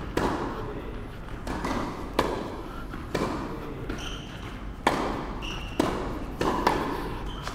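Tennis balls struck by rackets in a volley rally: sharp pops about once a second, each ringing briefly in a large indoor hall.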